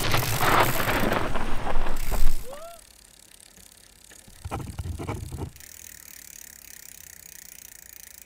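Mountain bike riding noise, dense with rattles and clicks, that stops about two and a half seconds in on a short rising squeal. A second brief burst of riding noise follows about two seconds later, then only a faint steady hum.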